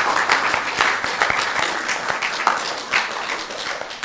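Congregation applauding after a song, a dense patter of clapping that begins to thin out near the end.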